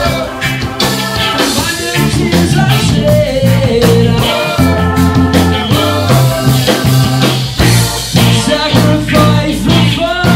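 Live reggae band playing: electric guitar, keyboard, bass guitar and drum kit with cymbals, with a voice singing over the steady bass line.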